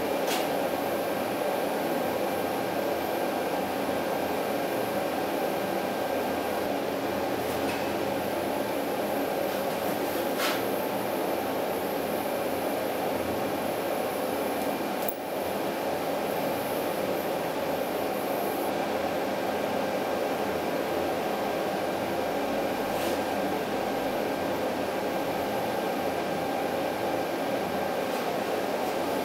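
Oxy-fuel torch flame burning steadily on a joint during brazing, an even rushing noise with a few faint ticks.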